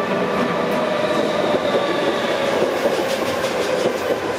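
Electric multiple-unit passenger train running slowly past along the platform: a steady whine over wheel-on-rail rumble, with a quick run of clicks from the wheels over rail joints about three seconds in.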